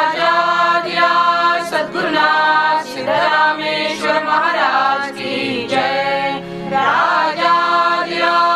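Group of voices chanting a devotional invocation in unison, Kakad Aarti style, in sung phrases over a steady low drone.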